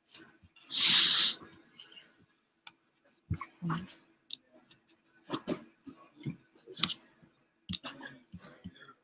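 Scattered clicks, taps and small knocks of a computer being worked, with a short loud hiss about a second in.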